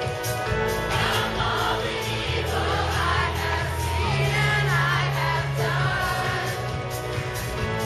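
Live wizard rock song: several voices singing together into microphones over music with sustained bass notes and a steady beat.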